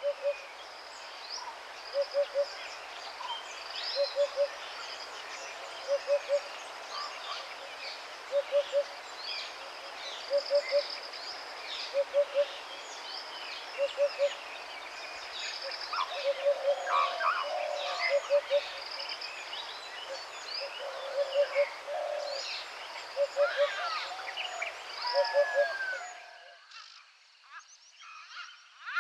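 Chorus of many wild birds chirping and whistling, over a low three-note hooting call repeated about every two seconds. The chorus briefly drops away near the end.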